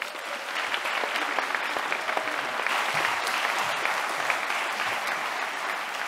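An audience applauding: many hands clapping, starting sharply and holding steady.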